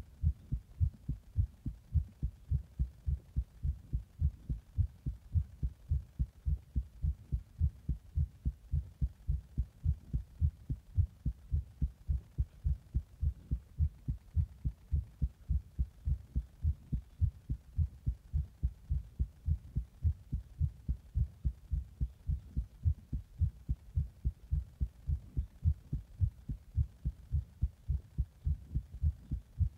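A person's heartbeat recorded close up: a steady, regular train of low thumps. It is the uploader's heart after drinking a Monster energy drink in the bath and pressing on the chest.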